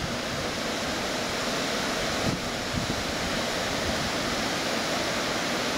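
Steady rushing of water at a small weir, with some low wind buffeting on the microphone.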